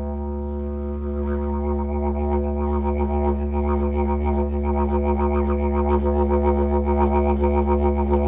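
Lightweight didgeridoo playing a steady low drone; about a second in, bright upper overtones come in and pulse rhythmically. This is the player's 'back hum' (backwave) effect being built up.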